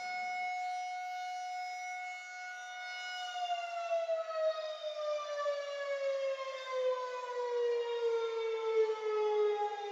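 Civil defense siren, heard in a recording reworked with audio effects. It holds one steady high pitch for about three seconds, then slowly winds down with its pitch falling, and the level wavers as it falls.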